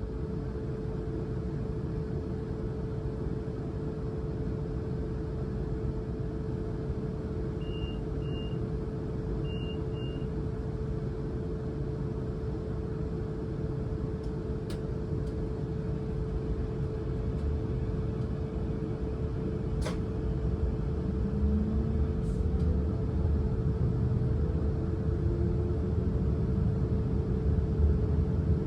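Class 444 Siemens Desiro electric multiple unit heard from inside: a steady electrical hum, with two pairs of short high beeps about eight and ten seconds in. From about twenty seconds in, a faint rising whine and a growing low rumble come in as the train starts to move.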